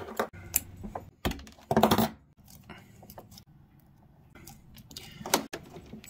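Small clicks, taps and light rattles of a screwdriver and wire connectors as bell wires are fastened to a fire alarm panel's terminals, with a louder short rattle about two seconds in.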